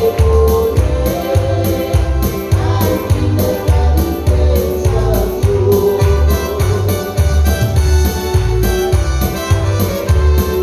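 Live Christian praise music: a melody over a steady, pulsing bass beat.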